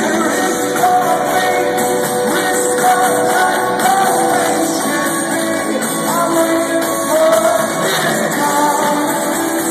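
Live rock band playing a song, with a voice singing over the instruments, recorded from the audience in a concert hall.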